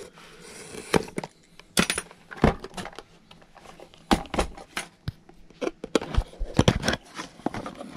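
Handling of a small cardboard product box and a paper instruction leaflet: irregular small knocks, taps and rustles.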